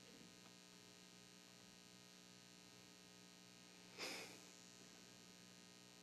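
Near silence with a steady, low electrical mains hum in the sound system. About four seconds in there is one short, soft noise.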